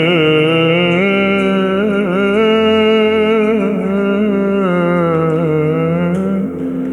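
Orthodox church chant in Church Slavonic: a long melismatic phrase sung on drawn-out, slowly gliding notes, with a short break near the end.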